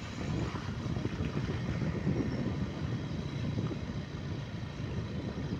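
Motorcycle riding along at a steady pace: wind buffeting the microphone, a dense low rumble that flickers constantly, with the bike running underneath it.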